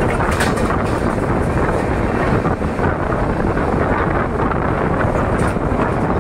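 Steady running noise of the Gorakhpur Superfast Express passenger train on the move, an even rushing rumble heard from on board, with wind on the microphone.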